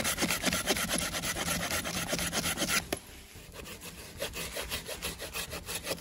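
A saw cutting through wood with fast, regular strokes, louder for the first three seconds and then quieter after a sudden drop.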